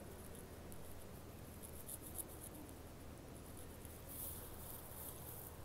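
Pencil writing on lined notebook paper: faint scratching, clearest about four seconds in.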